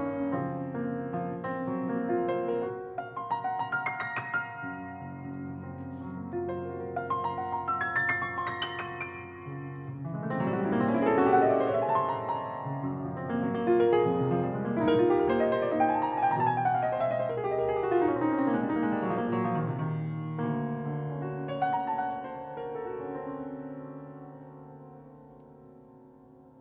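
Piano playing a solo passage: chords at first, then rapid runs sweeping up and down through the middle, then thinning and dying away near the end.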